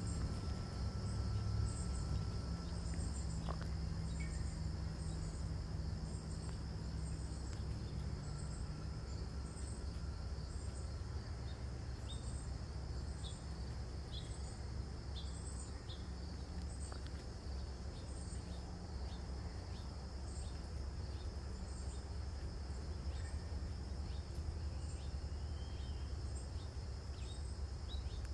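Insect chorus: a steady high trill with a repeated high chirp about once a second layered over it.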